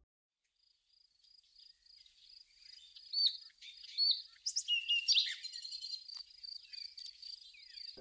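Dawn ambience of birds chirping and whistling over a steady, pulsing insect trill. It fades in out of silence about a second in and is fuller from about three seconds in.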